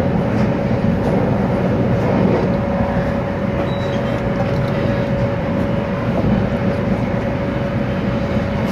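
E2 series Shinkansen train running, heard from inside the passenger cabin: a steady rumble of running noise with a constant whine held on one pitch.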